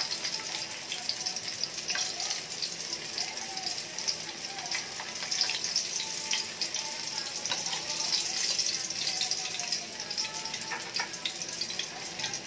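Fish frying in hot oil in an aluminium wok: a steady crackling sizzle, with a metal spatula now and then clicking against the wok as the fish are turned.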